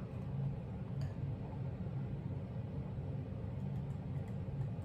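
Quiet room tone with a steady low hum and one faint click about a second in.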